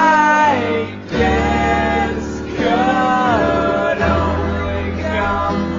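Slowed-down song: a man singing long, drawn-out, gliding notes over instrumental backing, the whole track pitched low by the slowdown.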